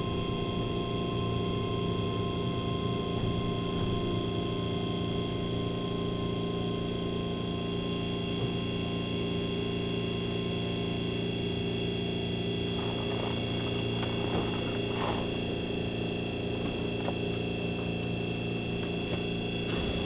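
Steady electrical hum of a stopped Keihan 3000 series train, heard inside the car: several constant tones over a low drone from its auxiliary power and air-conditioning equipment, holding the same pitch throughout, with a few faint knocks around two-thirds of the way through.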